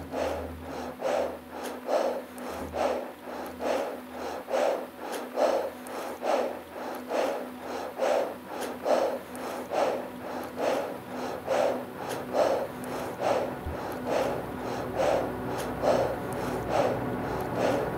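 A climber's heavy, rhythmic breathing close to the microphone, quick even breaths about one to two a second, hard from exertion in the thin air high on a steep snow face.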